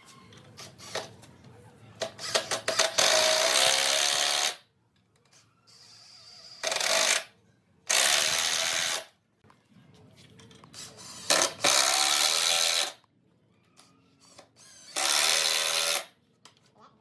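Cordless drill running into a wooden frame in five bursts of one to two seconds, the motor whirring up at the start of each, with short knocks in between.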